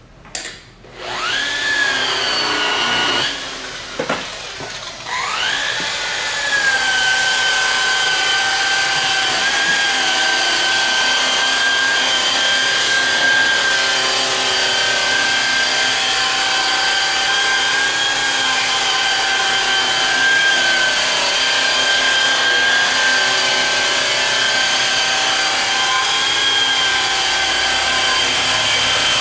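Angle-grinder-style rotary buffer with a cotton buffing wheel, loaded with compound, buffing an aluminum driveshaft. It spins up with a rising whine, runs briefly and stops. It starts again a few seconds in and runs steadily with a high whine for a second light polishing pass.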